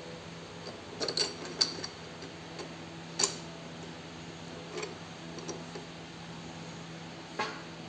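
Sharp metallic clinks and taps of an open-end spanner working bolts on a seed drill's steel frame, coming irregularly: a cluster about a second in, another about three seconds in, fainter ones later. A steady low hum runs underneath.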